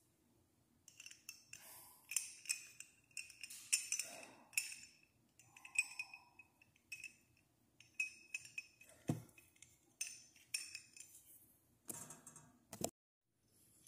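A small metal pin clinking and scraping against a steel ceiling-fan down rod and its ball fitting as they are handled: a string of irregular light clinks, each with a brief ring, and a firmer knock about nine seconds in.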